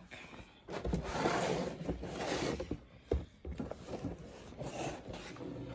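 Rustling and rubbing of laptop packaging: a cloth sleeve and cardboard box being handled, with a couple of light knocks about three seconds in.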